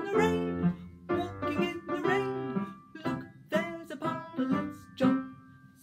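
A woman singing a children's song, with an instrumental accompaniment of sharply struck notes that die away, coming about twice a second.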